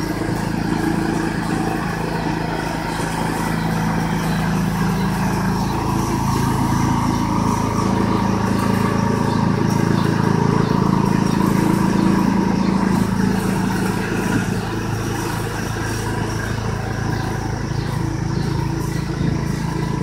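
Riding lawn mower engine running steadily while pulling a refrigerator across the grass on a tow rope.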